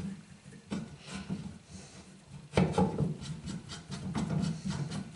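Metal parts being handled and fitted by hand on the head of a small drill press: irregular scraping and rubbing with light clicks, busier from about two and a half seconds in.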